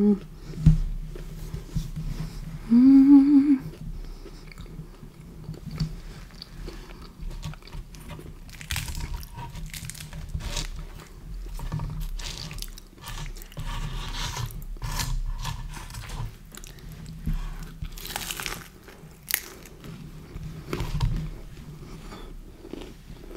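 Close-up chewing and biting of pizza, with crunching and wet mouth sounds in irregular strokes, and a short hummed "mm" about three seconds in.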